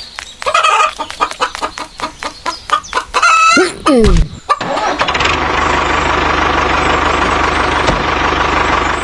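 Chicken clucking over a run of rapid clicks, then a small engine starts about four and a half seconds in and runs steadily, with a hiss and a low, fast pulsing.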